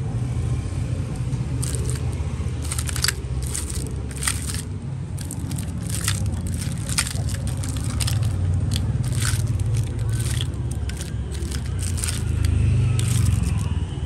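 Zippo lighters being handled: irregular sharp metal clicks and clinks, about twenty spread unevenly, over a steady low hum.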